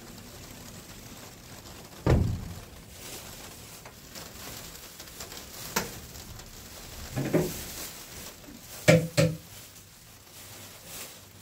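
Household items being handled: a low thump about two seconds in, then scattered knocks and a sharp double clack near the end, over a steady soft hiss.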